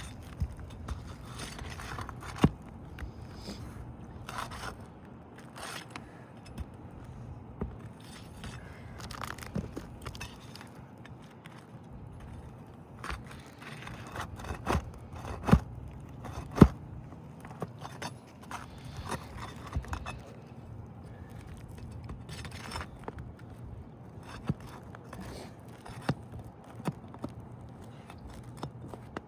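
Asphalt roof shingles being pried and worked loose with a flat bar: scattered scraping and crackling, with a few sharp knocks.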